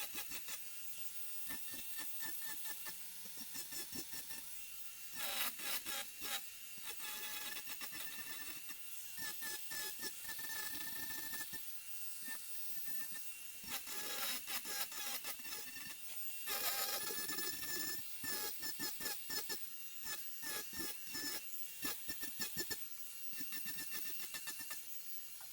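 Merlin2 mini angle grinder with a tungsten carbide burr disc carving wood: a steady high whine, with repeated loud rasping surges as the disc bites into the wood.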